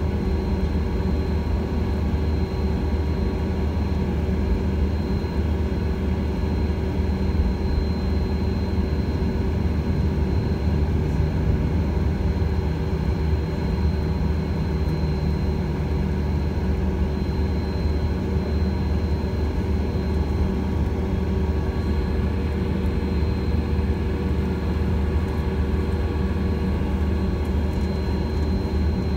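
Airliner cabin noise during taxi: the jet engines at low taxi power give a steady hum and low rumble, with a thin high whine held throughout.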